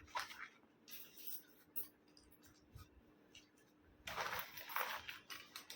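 Small items and the fabric of a backpack being handled: scattered light clicks and rustles, then a longer, louder stretch of rustling in the last two seconds.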